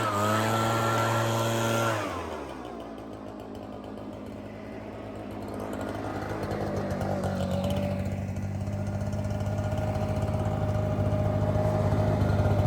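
Echo PB-9010 backpack leaf blower's two-stroke engine running at high speed, then the throttle is let off about two seconds in and it falls to a lower, quieter speed. It then slowly builds up louder again.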